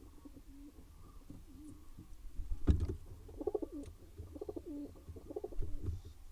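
Pigeons cooing in repeated low phrases on a nest box, with a loud thump on the box about two and a half seconds in and a smaller one near the end.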